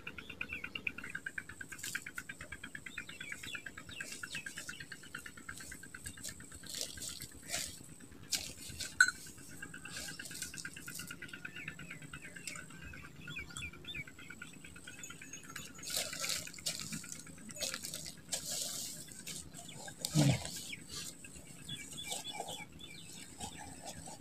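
Outdoor waterside ambience: a rapid, even pulsing chirp from a calling animal fades out after about ten seconds, under a thin high steady whine. Scattered rustles and splashy sounds come and go, with one louder, short low falling sound near the end.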